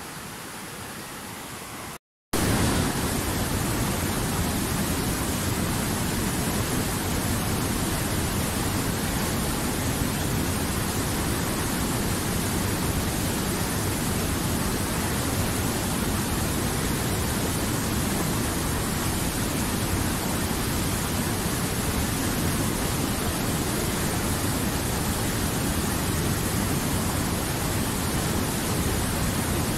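Steady rushing of a fast mountain river. About two seconds in, the sound cuts out for a moment and comes back louder: white water pouring over boulders in a rapid.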